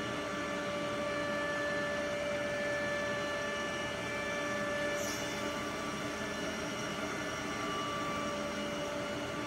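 Holztek PRO-R4F four-head CNC nesting router running while it machines a wood panel: a steady whine of several tones over an even noise of cutting and dust extraction.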